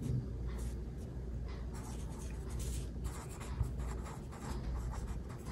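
A pen writing words on lined paper: a steady run of short strokes, with a faint low hum underneath.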